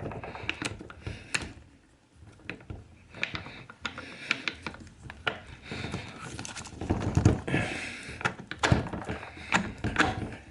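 Irregular clicks and knocks of a metal socket being handled and pushed onto an impact wrench's square anvil, with busier rattling about two-thirds of the way in; the socket is not seating firmly and keeps slipping.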